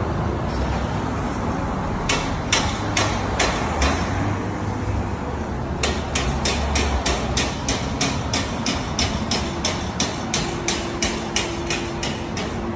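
Hammer blows in steady, rapid strokes, about three a second: a short run of five or so, a pause, then a long unbroken run from about six seconds in, over a low steady rumble of street traffic.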